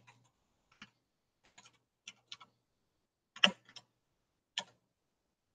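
Computer keyboard keys clicking, about seven scattered keystrokes, the loudest about three and a half seconds in.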